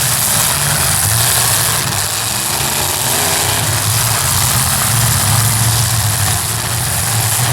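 Several demolition derby cars' engines running and revving together, a steady low drone with a hiss above it.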